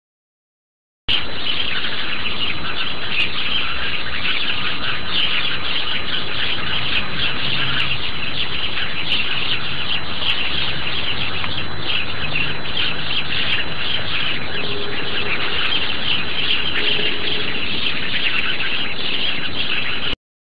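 A dense chorus of many birds chirping and twittering at once, at an even level. It starts abruptly about a second in and cuts off sharply near the end.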